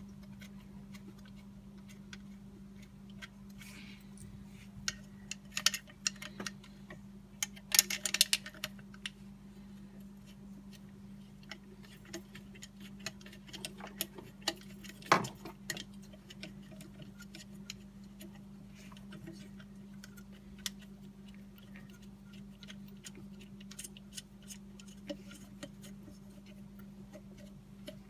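Socket ratchet clicking in short runs with metal tool clinks as the thermostat housing bolts are run back down, with one sharper knock about halfway through. A steady low hum sits underneath.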